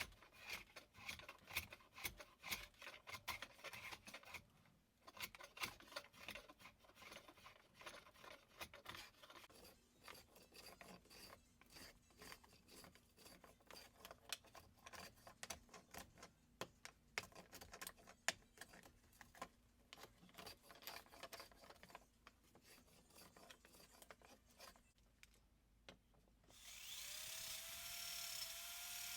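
Faint, irregular rubbing and scraping strokes of hand-work on a pickaxe. Near the end a small electric power tool starts up with a whine that rises in pitch and then runs steadily.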